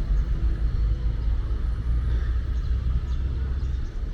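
Small river-crossing boat's engine running steadily as the boat approaches, a continuous low rumble.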